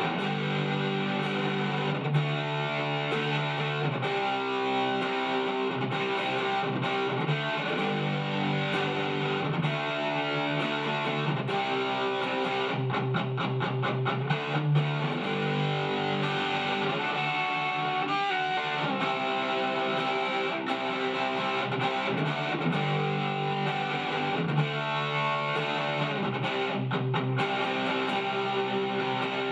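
Shelter SG-style electric guitar played solo, strumming and picking chords and riffs without pause, with a run of fast, even picking about thirteen seconds in.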